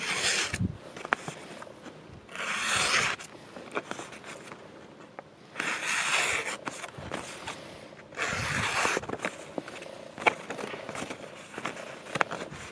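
A handmade full-tang bushcraft knife slicing through a sheet of paper in a sharpness test. There are four cuts, each a short hiss about a second long, coming roughly every three seconds, with small paper rustles and ticks between.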